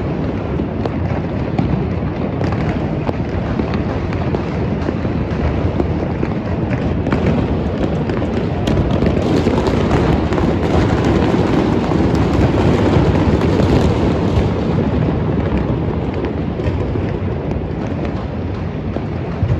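Dense, unbroken barrage of fireworks and firecrackers: many overlapping bangs and crackles running together into a constant rumble, growing louder about halfway through.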